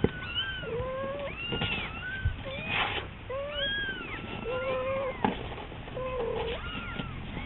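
Kitten meowing over and over in thin, high cries, each call arching up and falling in pitch, with a few brief knocks among them.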